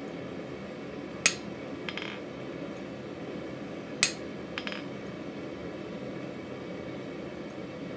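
Two hammer blows on a chisel cutting decorative lines into a mild-steel bottle-opener blank on the anvil, a few seconds apart. Each blow is followed by a couple of fainter metal clinks as the chisel is moved along the bar. A steady hiss runs underneath.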